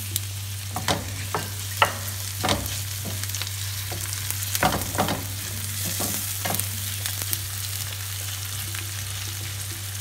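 Raw shrimp sizzling in butter in a stainless steel frying pan while a wooden spatula stirs them, with a scatter of sharp knocks and scrapes of the spatula against the pan over the first seven seconds or so, then an even sizzle. A steady low hum runs underneath.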